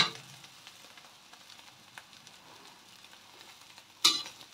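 Chive omelette sizzling faintly in a stainless steel wok, with a metal spoon scraping and knocking against the wok as it cuts the omelette: a sharp stroke at the start and more strokes about four seconds in.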